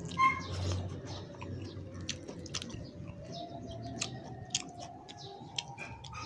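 Close-up chewing and lip-smacking of a person eating ripe tomato and grilled milkfish with rice: a steady string of short mouth clicks and smacks.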